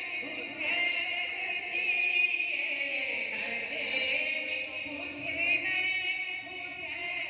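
Male devotional singing of a naat, long held notes that bend slowly in pitch, amplified through a microphone and loudspeaker in a reverberant hall.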